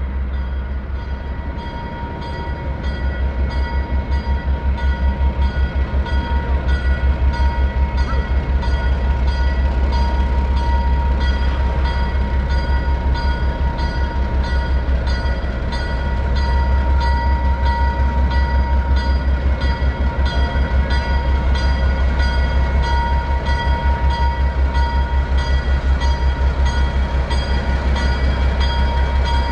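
ALCO S-6 switcher's diesel engine working hard under load with a rapid, even exhaust throb, growing louder in the first few seconds, dipping briefly about halfway and then picking up again. A locomotive bell rings in a steady rhythm over the engine.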